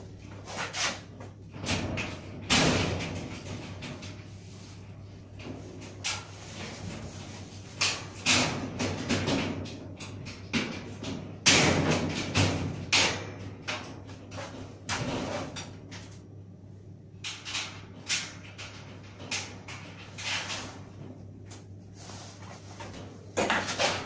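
Sheet-metal panels and frame of a dry-filter spray booth being handled and fitted by hand: irregular knocks, bangs and rattles of thin metal, the loudest about eleven seconds in, over a low steady hum.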